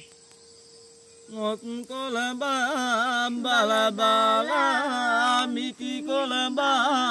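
Traditional Vedda (Sri Lankan Adivasi) song sung unaccompanied by a man and a boy. It begins about a second in, with long, wavering held notes.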